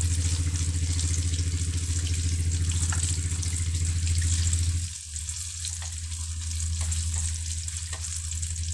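Banana fritters deep-frying in a wok of oil: a steady sizzle with small scattered crackles. Under it a loud, steady low hum drops away suddenly about five seconds in.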